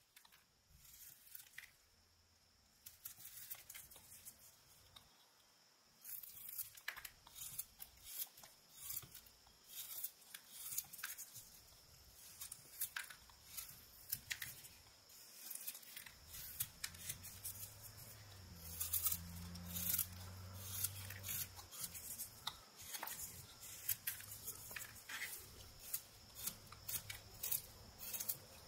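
Whittling knife slicing shavings off a block of eastern white pine in short, crisp cuts, several a second, getting going about six seconds in.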